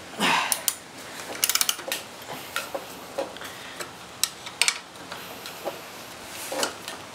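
Wrench tightening a scooter's rear axle nut all the way down: irregular sharp metallic clicks and knocks, with a quick run of clicks about a second and a half in and short scraping noises near the start and near the end.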